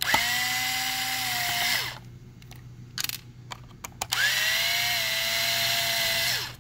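Battery-powered electric screwdriver running twice, each time for about two seconds, backing out the screws that hold a steering servo. Each run is a steady whine that spins up at the start and winds down at the end, with a few small clicks in the pause between the runs.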